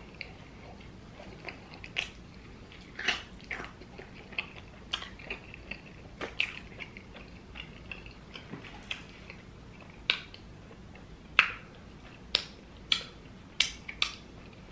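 Mouth sounds of a person eating hot wings: chewing with irregular wet lip smacks, turning into sharper smacks about once a second in the last few seconds.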